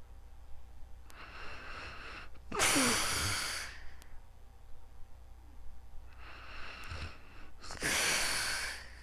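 A sleeping person breathing heavily and snoring, two breaths about five seconds apart. Each breath is a softer rush of air followed by a louder, longer, rasping one.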